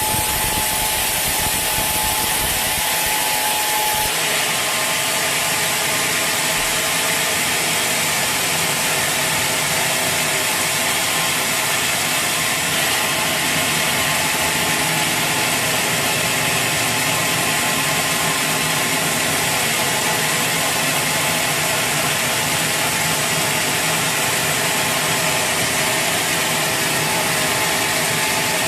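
Sawmill saw and its machinery running steadily, a dense mechanical noise with a change in tone about four seconds in.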